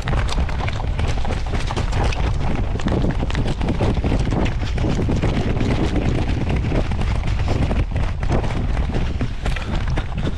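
Wind buffeting the microphone in a heavy low rumble, with a quick run of footfalls and knocks.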